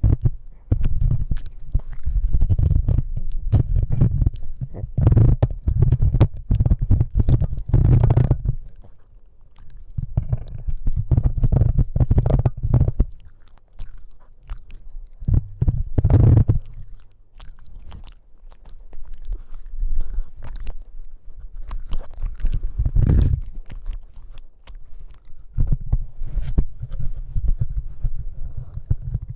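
Boston Terrier puppy biting and chewing on a microphone, heard close up as deep rumbling handling noise with sharp clicks of teeth, coming in stretches with short quieter pauses.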